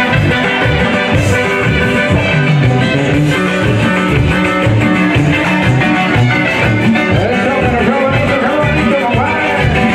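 Live band music played through a PA: guitar over a steady, bouncing bass line.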